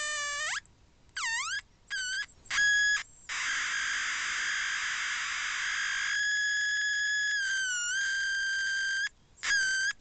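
Homemade blocking-oscillator circuit (Darlington transistor pair and a small mains transformer) squealing through a loudspeaker as a 'screaming bird' sound effect. A buzzy, whistle-like electronic tone comes in several separate bursts that swoop down and back up in pitch, then holds a long steady high note from about three seconds in, wobbling briefly near the end before one last short burst.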